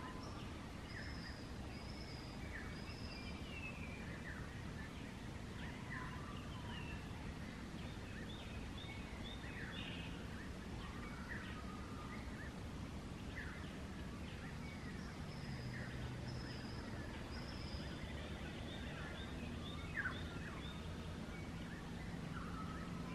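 Several bush birds calling, a mix of quick chirps and short high whistles in irregular runs, over a steady low rumble.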